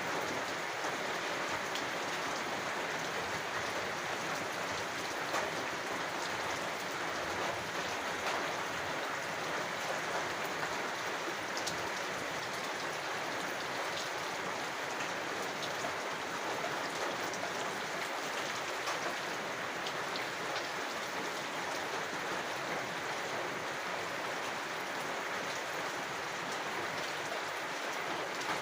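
Steady rain falling: a constant even hiss with scattered sharper ticks of individual drops.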